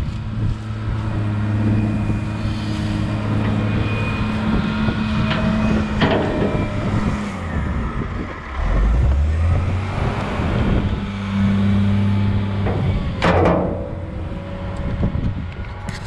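A heavy vehicle's engine running steadily; its pitch drops low about eight seconds in and comes back up a couple of seconds later. A few sharp knocks come through, the loudest near the end.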